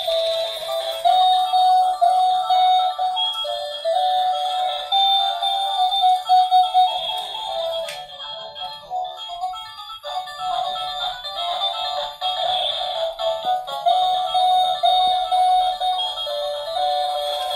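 A thin, tinny electronic Christmas tune played by the climbing Santa toy's small built-in speaker, with no bass. The melody drops out briefly about eight seconds in, then resumes.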